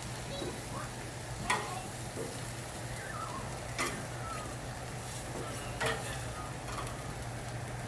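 Chicken pieces sizzling on a hot grill, with three sharp metallic clicks as the pieces are moved around the grate.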